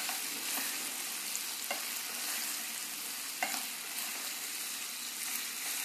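Paneer cubes, onion and capsicum sizzling in a pan as they are stirred and tossed in their sauce with a spatula: a steady frying hiss with a few light knocks of the spatula against the pan.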